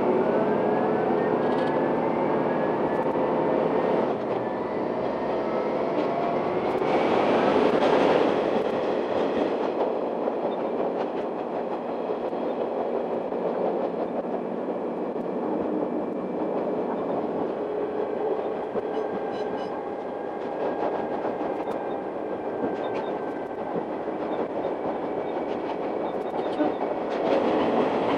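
Akechi Railway diesel railcar heard from inside the car, its engine note rising in pitch over the first several seconds as it accelerates away, then running steadily with the clickety-clack of the wheels over the rails. Near the end the sound swells as the train enters a tunnel.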